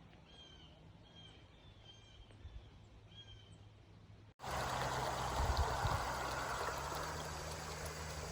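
Faint, short chirps repeated about every half second, then after a sudden cut a steady rushing noise, like running water or wind.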